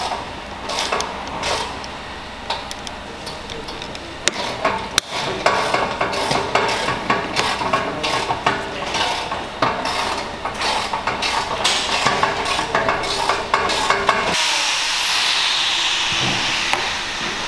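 Irregular clicks, knocks and rubbing as plastic car body trim and its clips are handled and worked by hand. About 14 seconds in, this gives way suddenly to a steady hiss with a faint falling whistle.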